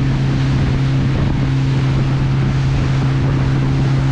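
Boat motor running at a steady pitch, with heavy wind buffeting the microphone.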